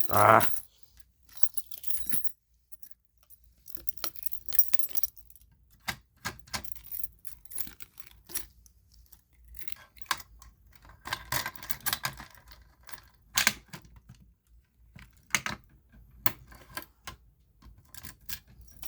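A bunch of keys jangling, with scattered clicks and light knocks of handling, starting and stopping in short clusters. There is a brief louder sound at the very start.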